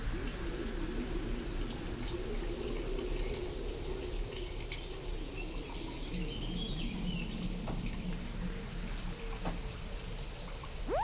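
Steady rain-storm ambience, sound-designed to seem otherworldly, with wavering low tones and a few faint ticks under the hiss. A rising swoop settles into a steady tone at the very end.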